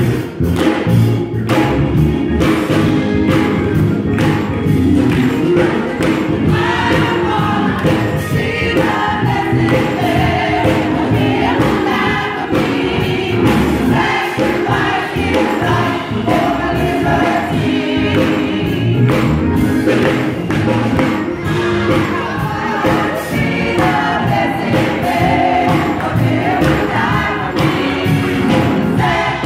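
Gospel choir of women singing to a steady beat.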